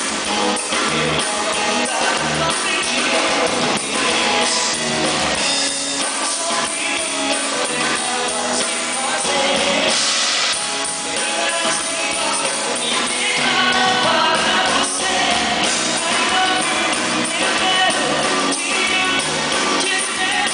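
Live band music with a singer, recorded on a camera microphone, so it sounds thin with almost no bass.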